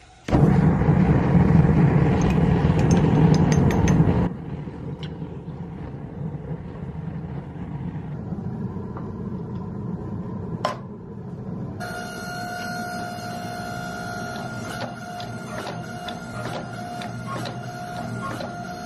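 A two-burner gas forge roaring loudly for about four seconds, cutting off suddenly. Then a forging press running steadily, with a sharp click a few seconds before a steady whine sets in, and fast light ticking over the whine.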